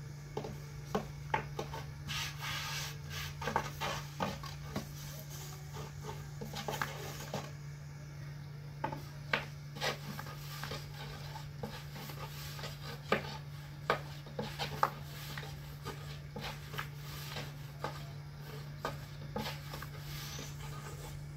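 Hand work in bread making: irregular rubbing and scraping with scattered light knocks, over a steady low hum.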